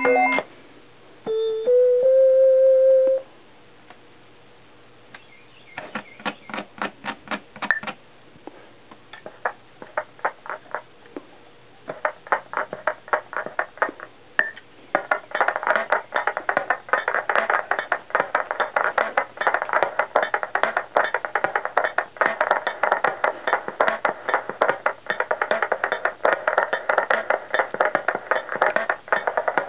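Casio SK-1 sampling keyboard playing: two short held notes near the start, then after a pause, fast repeated note patterns that grow denser and louder from about halfway.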